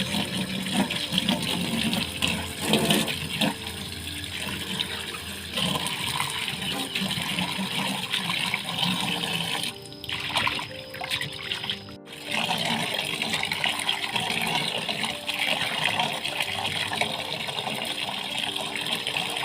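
Running water splashing as freshly picked leaves are rinsed by hand. The sound dips for a couple of seconds about ten seconds in.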